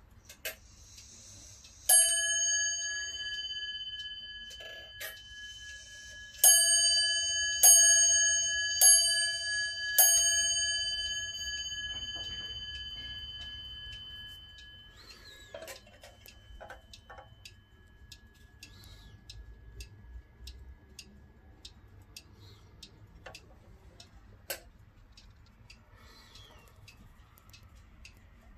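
Hermle bell-strike clock movement striking its bell: one stroke, then four strokes about a second apart, each ringing on and fading slowly. This is set off by turning the hands by hand. Afterwards the movement ticks lightly and regularly.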